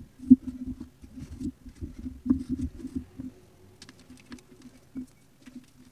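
Small pieces of reformed gym chalk crushed and crumbled between the fingers: a quick run of dry crunches and crackles through the first three seconds, with one sharp snap near the start, then sparser, fainter crackles.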